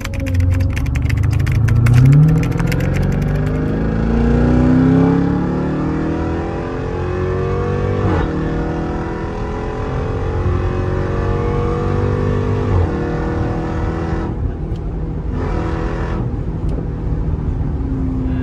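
Jeep Grand Cherokee Trackhawk's supercharged V8 accelerating hard, its pitch climbing and dropping back at each upshift over the first few seconds, then running more steadily at speed.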